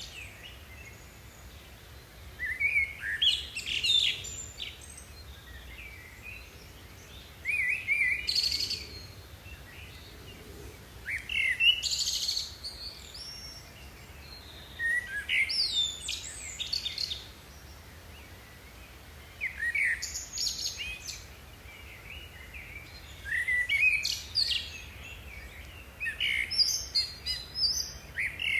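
Songbird singing short phrases of quick, sweeping high chirps, each lasting a second or two and repeated about every four seconds.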